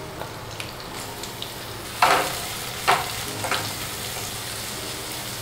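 Sliced onions sizzling in hot sesame oil in a non-stick kadai, stirred with a silicone spatula, with three louder stirring strokes between about two and three and a half seconds in.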